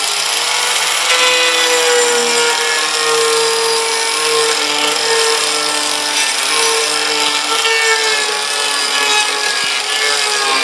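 Handheld angle grinder running steadily with a disc pressed against wood, grinding and shaping the carved spiral rings of a turned wooden piece: a constant motor whine over the scrape of the disc on the wood.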